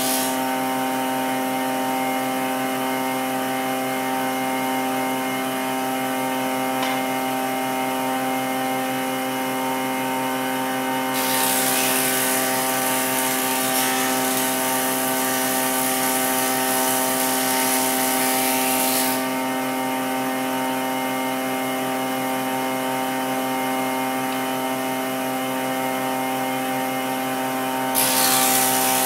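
Nishino Seisakusho MK-900 universal woodworking machine running with a steady motor hum. A louder rushing hiss joins about eleven seconds in, lasts some eight seconds, and comes back near the end.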